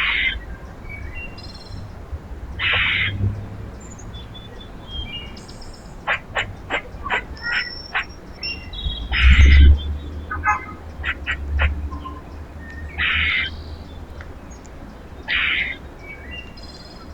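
Wild birds calling at a backyard feeder: a series of harsh, rasping calls about half a second each, with runs of short sharp chip notes between them. A low rumble comes in under the loudest call, about halfway through.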